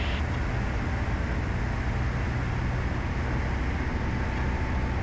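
Steady drone of a Breezer B600 light aircraft's piston engine and propeller heard from inside the cockpit, at approach power on final with landing flaps set.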